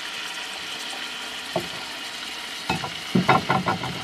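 Venison tenderloin sizzling steadily in a hot cast iron skillet. About three seconds in, a brief run of louder, short pitched sounds rises over the sizzle.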